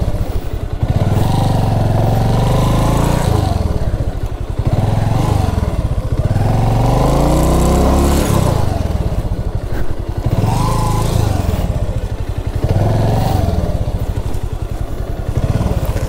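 Motorcycle engine being ridden on and off the throttle: it revs up and eases off about four times. The longest climb, in the middle, cuts off suddenly.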